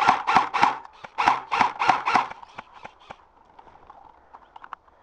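Footsteps crunching through snow, about three steps a second, stop after two seconds or so. They give way to softer scuffs and small clicks.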